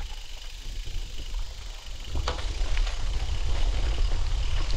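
Wind rumbling on the microphone with rolling tyre noise from a moving bicycle, getting louder about two seconds in, with one sharp knock just after.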